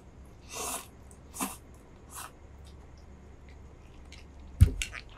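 Spicy instant noodles slurped in three short noisy draws during eating. Near the end comes a sharp knock with a few clicks, the loudest sound.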